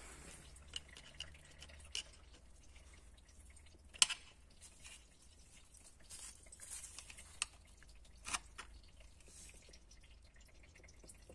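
Faint, scattered clicks and light scrapes of a thin metal pick tapping and picking at soft reddish stop-leak residue on an engine block's deck and coolant passages, with one sharper click about four seconds in.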